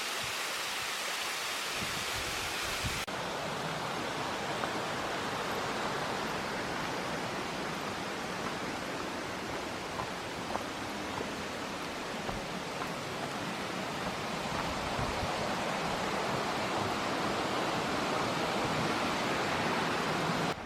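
Steady rushing roar of a tall waterfall heard close by. The sound turns slightly duller about three seconds in and swells a little toward the end.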